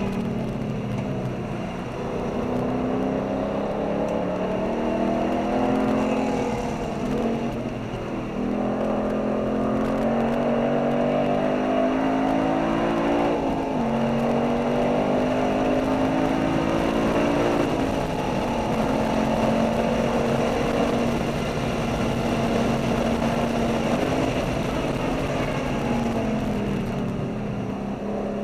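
V8 sports car engine heard from inside the cabin at speed, its note climbing under hard acceleration and dropping sharply at gear changes or lifts about a quarter, halfway and two-thirds of the way in, then holding steady, over tyre and wind roar.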